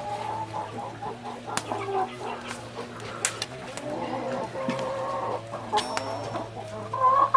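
Chickens clucking in short, irregular calls, over a steady low hum with a few sharp clicks.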